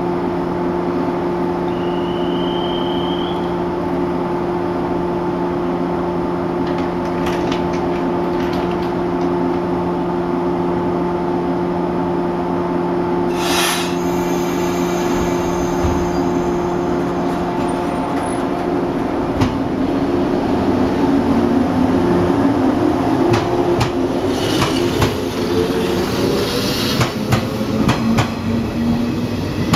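A Shinano Railway 115 series electric train stands at the platform with a steady hum from its onboard equipment. About halfway there is a short hiss of air. Then the train pulls away, its motor whine rising in pitch, with clacks from the wheels as it passes.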